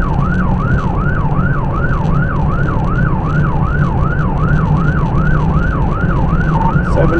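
Police car siren in a fast yelp, its pitch rising and falling about three times a second, over engine and road noise inside a cruiser at pursuit speed.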